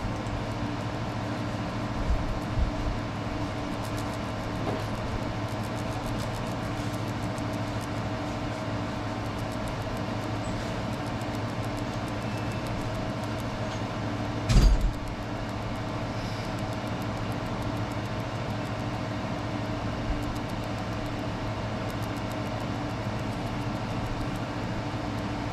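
Laser engraver running with a steady machine hum that holds several fixed tones, and faint clicks above it. A few soft thumps come early on and one louder thump about halfway through.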